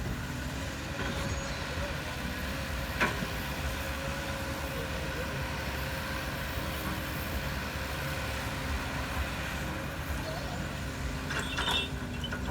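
Heavy diesel construction machine engine running steadily, with one sharp knock about three seconds in and a brief metallic clatter near the end.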